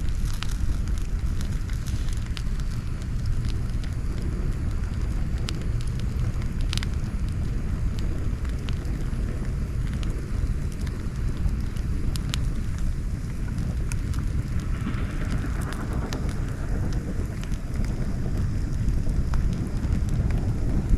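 Campfire burning, wood crackling with scattered sharp pops, one louder pop about seven seconds in, over a steady low rumble.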